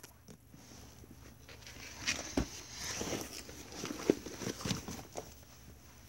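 Faint scattered taps and soft rustling, with the busiest stretch in the middle: handling noise as the recording phone is moved about.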